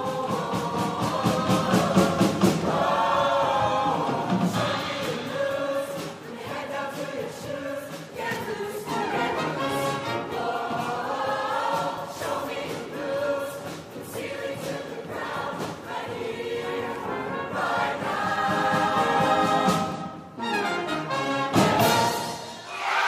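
Show choir of mixed voices singing an up-tempo number at full voice with a live band, the accompaniment punctuated by sharp accented hits. The music drops away briefly near the end before one last loud hit.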